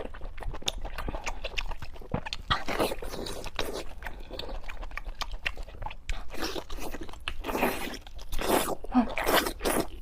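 Close-miked chewing and crunching of food in the mouth: a run of wet crackling bites and chews, louder near the end.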